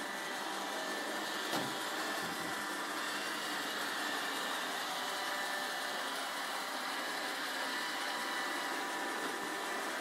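iRobot Roomba 780 robot vacuum running as it cleans the floor, a steady motor noise with a thin high whine. A single short knock about one and a half seconds in.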